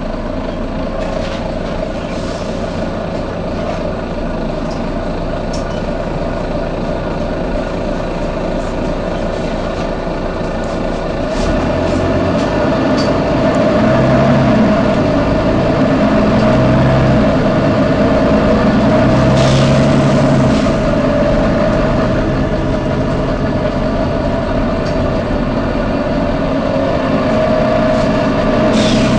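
Volvo B9TL double-decker bus running, its engine and driveline drone steady at first and growing louder about twelve seconds in. A few short hisses of air are heard, the clearest about two-thirds of the way through.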